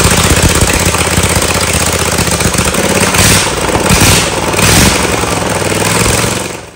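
Briggs & Stratton 22 hp V-twin lawn tractor engine running steadily, with three brief louder rushing bursts near the middle. The engine runs but shoots sparks, and one cylinder holds lower compression than the other.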